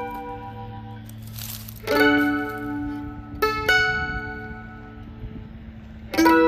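Slow mandolin tune: four plucked notes or chords, spaced a second or more apart, each left to ring out.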